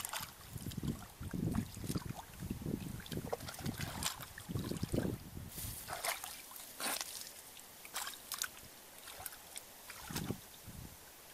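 Hands digging and sloshing in shallow muddy water, with irregular wet squelches and splashes, the sharpest ones in the second half.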